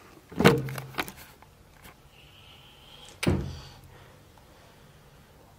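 Two dull thumps about three seconds apart, each trailing off in a short low hum.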